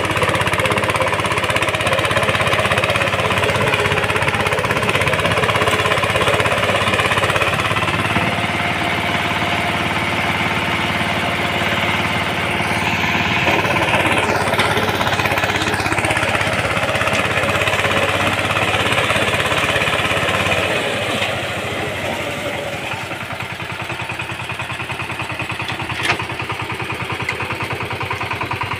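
VST Shakti 130 DI power tiller's single-cylinder diesel engine running steadily under load while its rotary tiller churns the soil. The engine gets somewhat quieter about two-thirds of the way through, and a single sharp click sounds near the end.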